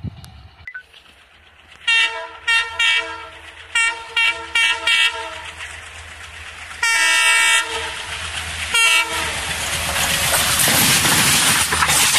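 Alco WDM-3D diesel locomotive's air horn sounding a run of short blasts, then one longer blast and a last short one, as the train approaches. After that comes the rising rush and rattle of the express passing close by on the track.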